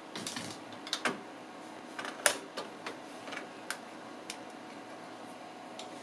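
Scattered light clicks and taps from handling small computer hardware, a processor being set into its motherboard socket; about a dozen short clicks, the sharpest a little over two seconds in, then quieter near the end.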